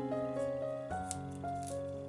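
Background instrumental music: a melody of held notes that change pitch every half second or so, with a few light clicks.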